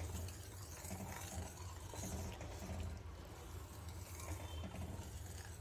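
Steel ladle stirring boiling milk in a steel pan, faint, over a steady low hum.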